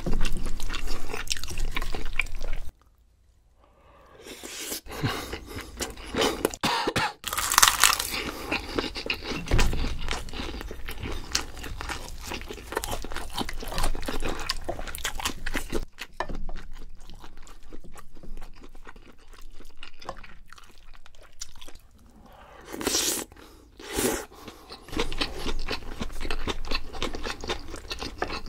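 A person chewing and crunching mouthfuls of food close to the microphone, in quick clicking bites. The sound stops for about a second roughly three seconds in, and two louder bites come near the end.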